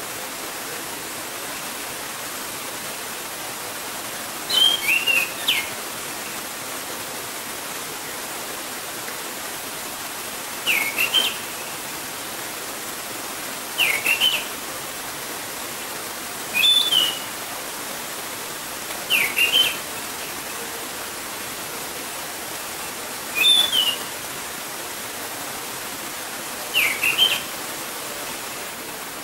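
Orange-headed thrush singing seven short phrases of quick rising and falling notes, each under a second long, with gaps of a few seconds between, over the steady rush of a gurgling stream.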